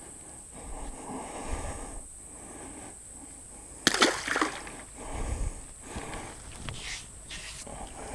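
Water splashing, with one sharp, loud splash about four seconds in and smaller irregular splashes after it.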